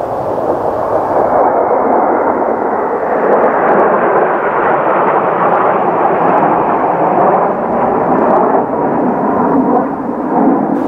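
Kawasaki T-4 jet trainers passing low overhead in formation, a loud rushing jet noise from their turbofan engines that swells over the first few seconds and then holds.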